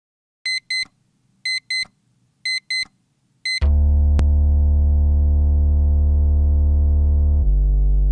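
Digital alarm clock beeping in pairs of short high beeps, about one pair a second, three pairs and then a single beep. About halfway through, a loud held low synthesizer note comes in over it and shifts in pitch near the end.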